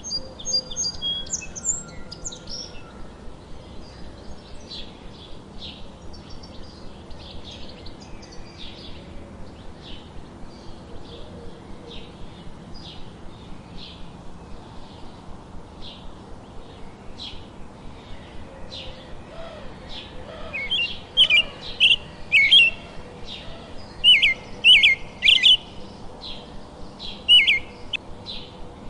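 Songbirds chirping: a steady run of short, high chirps, with a brief warbled phrase at the start. From about two-thirds of the way in, a louder bird breaks in with clusters of sharp chirps.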